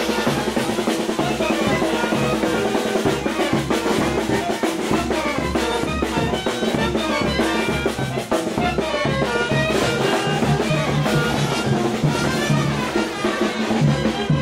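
Brass band playing brinco del chinelo music: trumpets, saxophone and tuba over snare and bass drum in a steady bouncing beat.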